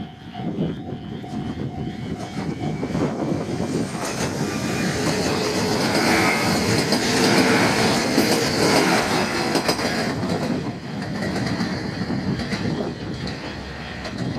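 Three-car 1500 series diesel railcar passing at high speed, the wheels clattering over the rail joints; it builds to its loudest about halfway through, then eases off.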